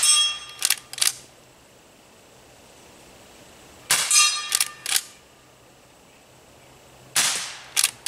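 Henry H001 lever-action .22 rifle firing CCI CB .22 Short rounds three times, about four seconds apart: each shot is a short, light crack. The first two are followed by a brief metallic ring as the bullet hits a hanging steel target, and each shot is followed within a second by two sharp clicks as the lever is worked to eject and chamber.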